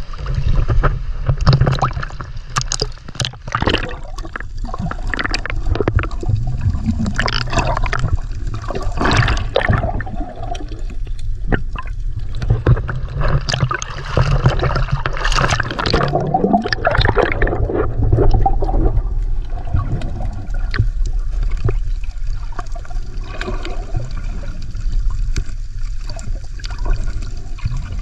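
Water sloshing, splashing and gurgling around a camera dipped under the sea surface, heard muffled through its underwater housing over a steady low rumble. The splashes and bubbling are busiest through the first two-thirds and settle into a steadier underwater rush near the end.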